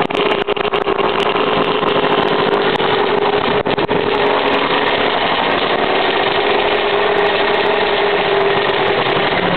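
1998 Suzuki RM125's 125 cc single-cylinder two-stroke engine running steadily at idle after a cold start.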